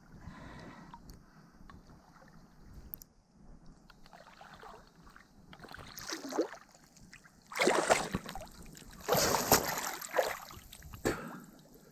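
Water splashing and sloshing around the camera, with a few louder splashes in the second half.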